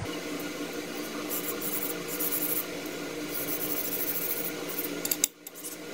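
Linear ball bearings sliding back and forth along a polished steel guide rod, a scratchy rubbing sound that comes in short stretches, as each bearing is checked for smooth running.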